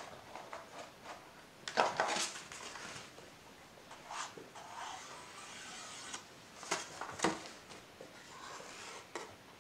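Rustling and scraping of a cut piece of plastic carton handled against paper, with scratchy strokes of a marker pen drawing a line on the plastic. The loudest scrapes come about two seconds in and again around seven seconds.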